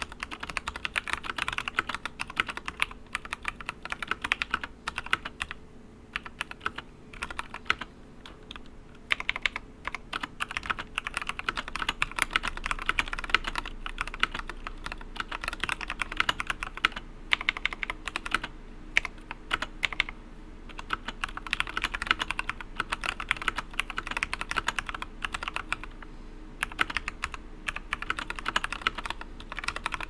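Continuous typing on a Discipline 65 mechanical keyboard fitted with 67 g Durock T1 tactile switches, in a wooden case: a dense run of key clicks and clacks with a few brief pauses.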